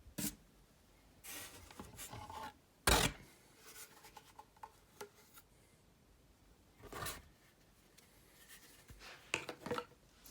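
Packaging and plastic vacuum parts being handled: scattered rustles, rubs and knocks. The loudest is a sharp scrape about three seconds in, and there are a few quick clicks near the end.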